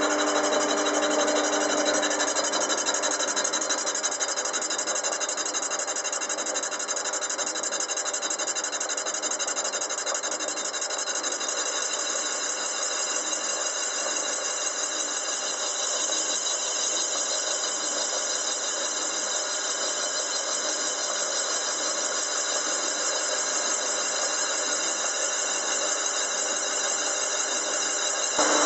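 Metal lathe running while a heavy-duty boring bar cuts inside the bore of a small moped cylinder, a steady, even machining sound, mostly high-pitched.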